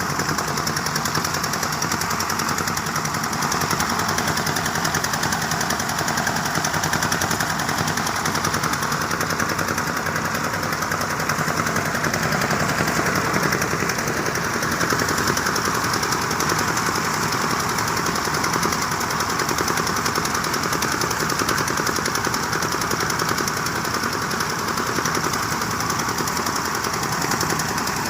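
Diesel-powered rice threshing machine running steadily: the engine's rapid, even pulsing with the threshing drum's whirring noise over it.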